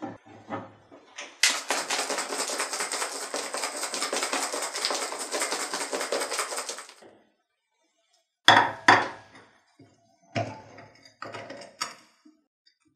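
A closed glass jar shaken hard by hand, giving a fast, steady rattle for about five seconds. Then several sharp glass knocks and clinks as the jar is set down in a glass bowl and its lid is taken off.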